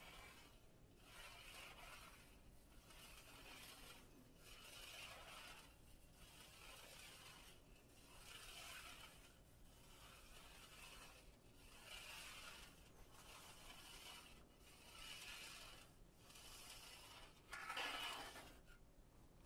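Faint, repeated scraping swishes, about one every second and a half, as a thin stylus is drawn in rows through carrageenan marbling size, raking the floating acrylic paint into a feather pattern. One stroke near the end is louder.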